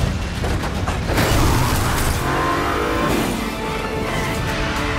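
Car-chase film soundtrack: a car engine revving hard, its pitch rising and falling, mixed with a driving music score.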